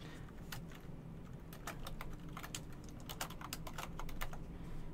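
Typing on a computer keyboard: an uneven run of quick keystrokes, with a faint steady low hum underneath.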